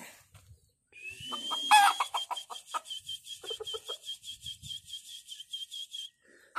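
Rooster clucking in short bursts, the loudest about two seconds in, over a high, rapid trill of about six notes a second. The trill starts with a rising note about a second in and stops near the end.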